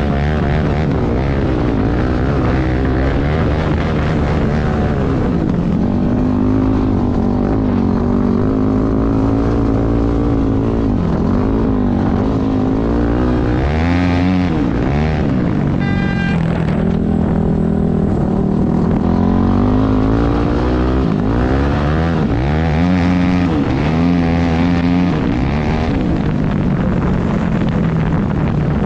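Yamaha YZ400F single-cylinder four-stroke engine in a three-wheeler conversion running hard on the move. Its pitch repeatedly climbs and drops as it accelerates and shifts gears. A brief high tone sounds about halfway through.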